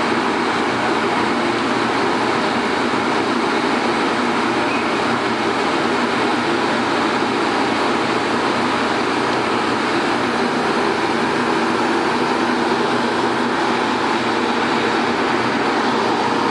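Steady running noise of a MARC commuter train hauled by an MP36 diesel locomotive, heard from beside its passenger cars, unchanging throughout, with the hiss of rain mixed in.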